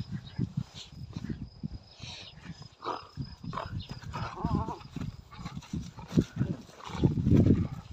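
Kangal puppies eating bread and mouthing at a hand: a dense, irregular run of short low snuffling and chewing noises, with a brief wavering high cry about four and a half seconds in.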